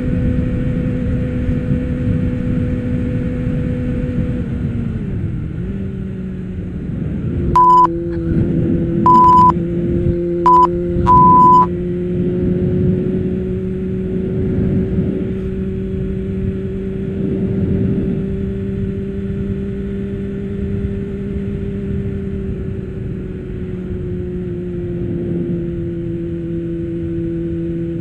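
Suzuki motorcycle engine running steadily under wind rumble, its note dropping to a lower pitch about five seconds in and holding there. Four short bleeps of a single high tone come between about eight and twelve seconds in.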